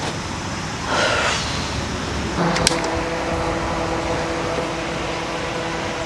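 Small rechargeable circulator fan switched on with a click about two and a half seconds in, then running steadily with a motor hum and a few steady tones.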